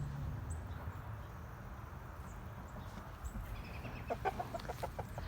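Chickens clucking: a quick run of short clucks about four seconds in, over steady low wind rumble.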